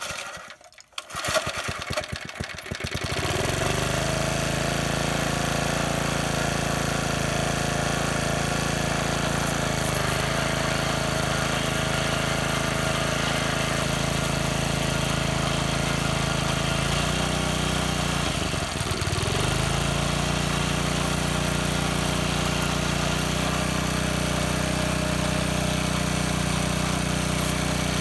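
Small gasoline engine of a McLane walk-behind edger pull-started, catching after a couple of pulls and settling into steady running with the blade spindle, fitted with new greased bearings, turning. The engine note dips briefly and recovers about nineteen seconds in.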